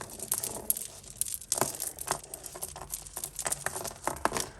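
Costume jewellery being handled: glass beads and chains clicking and rattling against each other in a string of small, sharp, irregular clicks, with light crinkling.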